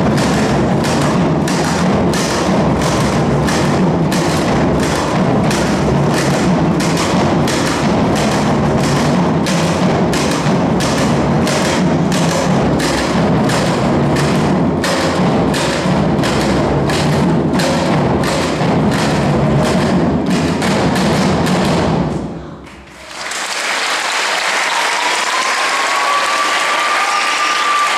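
Percussion ensemble of djembes and other drums playing together in a steady, driving rhythm with strong accents about twice a second. Near the end the drumming stops abruptly and the audience applauds.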